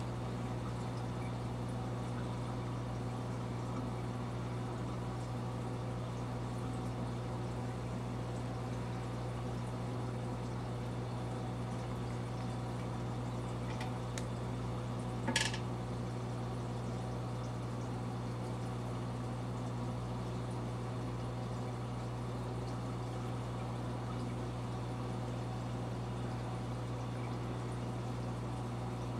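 Steady low hum of saltwater reef tank equipment running, the pumps and water circulation. A brief high-pitched sound about halfway through.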